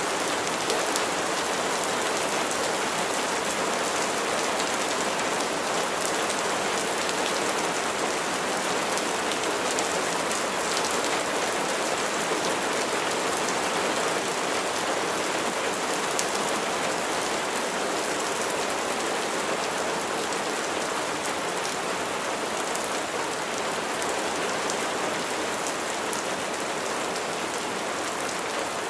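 Steady rain falling on a surface, an even hiss with many fine drop ticks.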